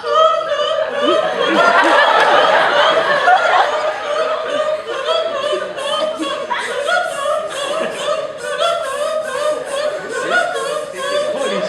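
Voices singing a cappella in a quick, evenly repeating rhythmic pattern.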